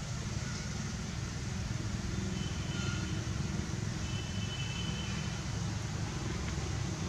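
Steady low outdoor rumble with a faint hiss above it, and a few faint, thin high tones about two and a half seconds in and again between four and six seconds in.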